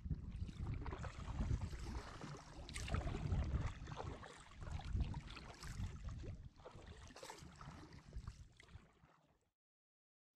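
Kayak paddle blades dipping and splashing into the water on strokes about every two seconds, with wind rumbling on the microphone. The sound fades out near the end.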